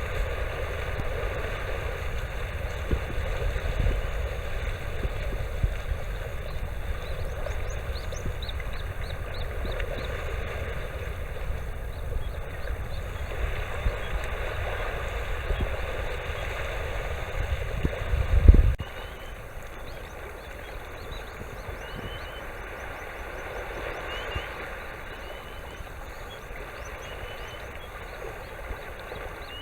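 Faint, repeated short whistled calls of a migrating sandpiper, a 'turui, rui, rui' that is taken for a grey-tailed tattler, over steady wind and sea noise. Heavy wind rumble on the microphone ends with a thump about 18 seconds in, after which the calls stand out more clearly.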